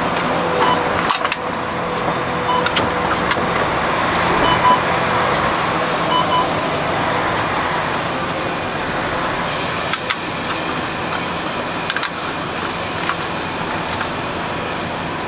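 City bus in motion, heard from inside. Steady engine and road noise with occasional short clicks and rattles.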